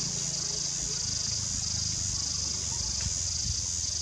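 Steady, high-pitched chorus of insects, pulsing slightly, over a low rumble.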